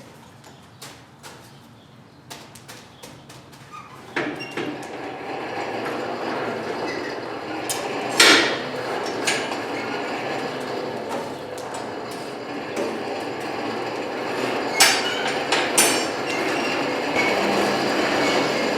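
A blacksmith's forge fire starts a steady rushing about four seconds in, heating the steel for a forge weld, with several sharp metallic clinks of steel on steel.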